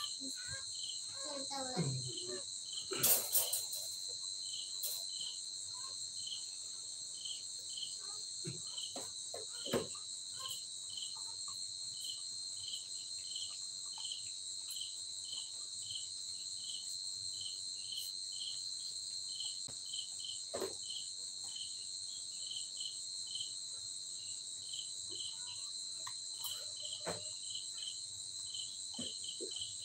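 Night insects calling in a steady chorus: a continuous high-pitched trill with another insect's chirp repeating about twice a second. A short clatter about three seconds in and a few soft knocks and rustles.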